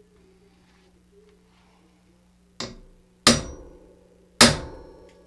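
Hammer striking a center punch on a bicycle frame tube to mark a drilling spot through the powder coat. There is one light tap a little over two seconds in, then two hard strikes about a second apart, each ringing briefly.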